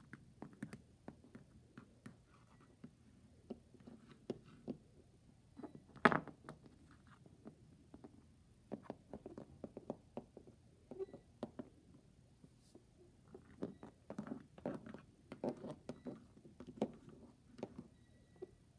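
Plastic toy horse figures tapped along a wooden floor like hooves: scattered light taps and knocks, one sharper knock about six seconds in, and busier tapping in the second half.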